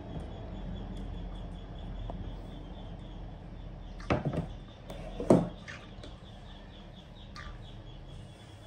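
Faint birds chirping over a low steady room hum, with two short sharp knocks about four and five seconds in.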